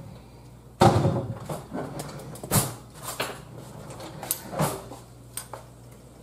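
A kitchen drawer being opened and utensils knocking and clinking as a tasting spoon is picked out: a string of sharp knocks, the loudest about a second in.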